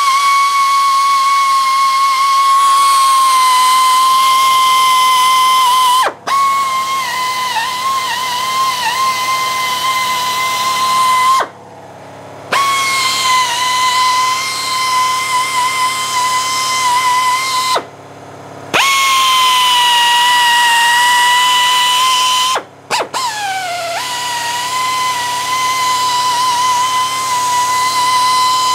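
Pneumatic die grinder with a wire brush whining at high speed, cleaning the up-pipe mating surface on a Ford 7.3 Power Stroke diesel's exhaust manifold. Its pitch sags briefly when it is pressed against the metal, and it stops and restarts three times.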